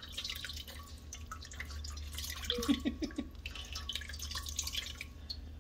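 Kava liquid dripping and trickling out of a hand-squeezed cloth strainer bag into a stainless steel bowl, in many small irregular drips and splashes.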